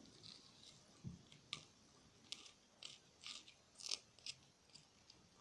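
Faint, irregular wet clicks and small pops of clear slime being squeezed and picked at with fingers. There are about a dozen, spread unevenly, and the loudest comes just before the four-second mark.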